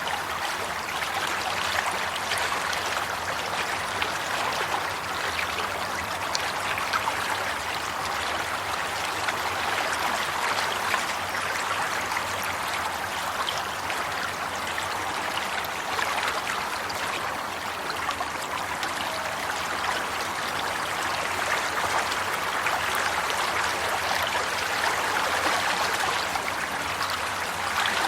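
Water flowing steadily over stones in a stream, a continuous babbling and trickling rush.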